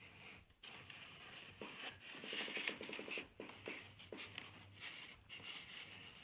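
Faint rustling, scratching and small taps of paper and plastic being handled while a paper sail is fixed onto a plastic-bottle boat, with a short rasp near the middle.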